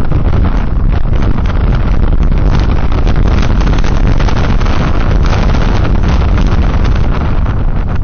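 Wind buffeting the microphone of a motorcycle-mounted action camera, over the steady running of the motorcycle's engine on a wet road.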